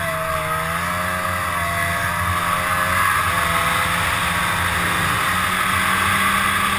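2002 Arctic Cat ZR 800 snowmobile's two-stroke twin engine running at a steady cruise, its pitch wavering a little for the first three seconds and then holding, with heavy wind rush on the helmet microphone.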